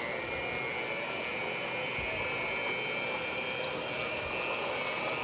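Electric hand mixer running at a steady speed, a high motor whine, its twin beaters working cream cheese and condensed milk in a glass bowl.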